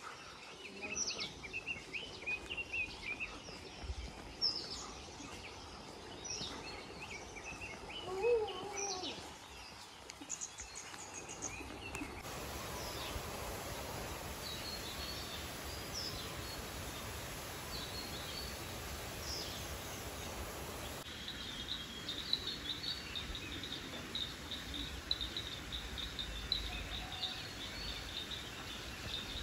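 Outdoor ambience of spliced clips: scattered short bird chirps and calls for the first dozen seconds, then steady background noise, and in the last third a continuous rapid high insect trill.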